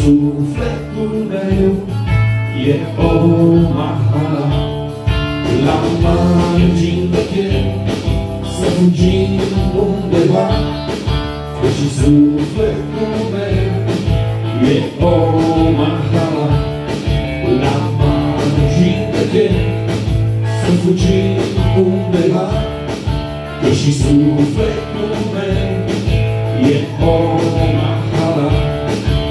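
Live band music: electric guitar playing over a steady beat during the song, with no clear sung words.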